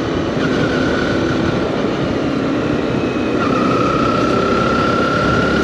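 Motorcycle riding on a city road, heard from the rider's position: steady engine running with dense wind and road noise, and a thin steady whine that holds one pitch, briefly near the start and again from a little past halfway.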